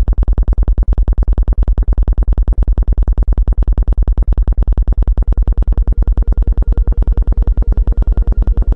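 Synthesized sound-healing frequency track: a deep electronic tone pulsing rapidly and evenly, with faint higher sustained tones above it.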